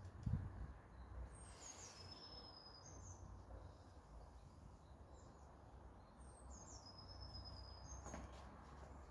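A songbird singing twice, each a short phrase of falling high whistles ending in a held note, over a faint outdoor background. A low thump sounds just after the start.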